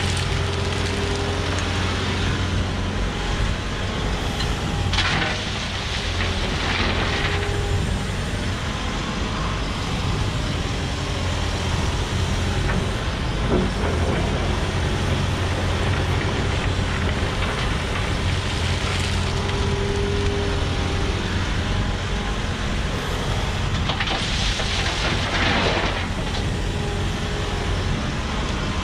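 Volvo EWR150E wheeled excavator's diesel engine running steadily under working load, with a hydraulic whine that rises and falls now and then. Short rushes of hiss come a few seconds in and again near the end.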